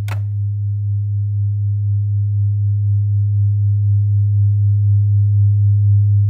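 A sharp click, then a steady low electronic hum with a faint higher tone above it and a slight regular pulsing in level.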